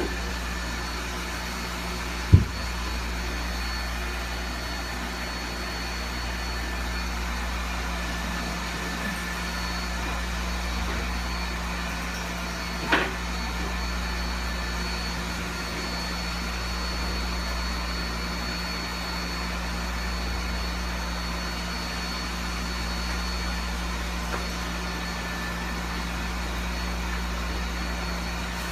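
A steady, low machine hum with a few faint steady tones above it. A sharp knock comes about two seconds in and a lighter tap near the middle.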